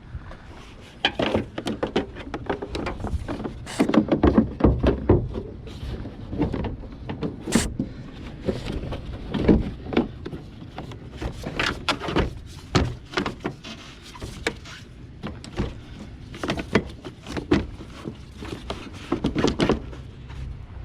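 Plastic cowl panel being handled and pressed into place along the base of a windshield: a string of irregular hollow plastic knocks and clicks, in clusters, with quieter rustling between.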